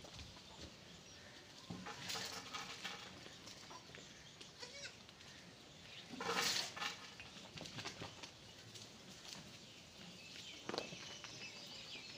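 Goat bleating, loudest once about six and a half seconds in, with shorter, fainter sounds around two seconds in and near the end.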